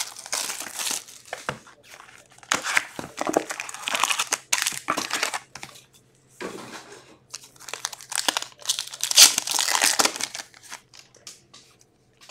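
Plastic wrapping crinkling and tearing in irregular bursts: cellophane shrink wrap being stripped off a box of trading cards, then a card pack being torn open and its cards handled.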